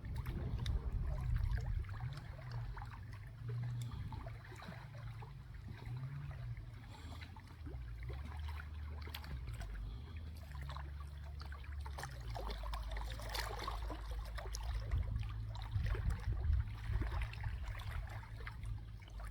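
Running water trickling and splashing, a continuous patter of small irregular drips and splashes, over a steady low rumble.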